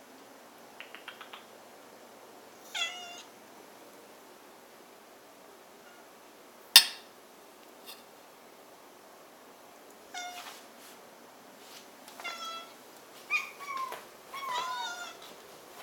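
Pet cats meowing, about six short meows, one about three seconds in and the rest close together in the last third. A single sharp clack about seven seconds in is the loudest sound, with a few light ticks near the start.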